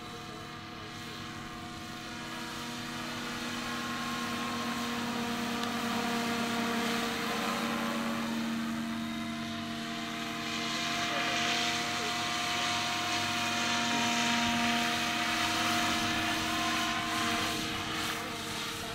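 Radio-controlled scale Bell UH-1N / 412 twin Huey model helicopter flying, a steady mechanical whine and rotor hum. It grows louder as the model comes closer, loudest in the second half with a rushing hiss as it passes near.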